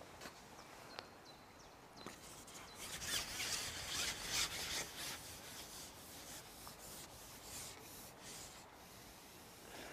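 Fishing pole being shipped out, a faint scraping rasp as the pole sections slide and rub through the hands, with a couple of small clicks first and the rubbing loudest a few seconds in.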